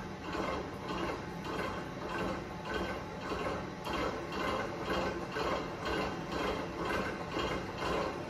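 Innofood V88 stand mixer running, its motor and gears turning the beater through creamed butter, sugar and egg batter, with a regular pulse about twice a second.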